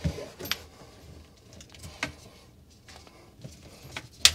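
Scattered light clicks and knocks of hands handling faucet hose and plumbing parts inside a sink base cabinet, the sharpest a single click near the end.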